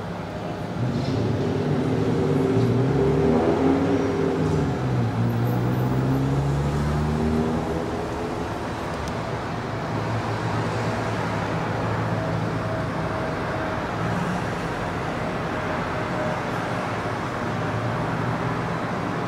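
Motor engine noise over a steady low city hum: from about a second in, a louder engine runs with its pitch gliding up and down, fading back into the hum after about eight seconds.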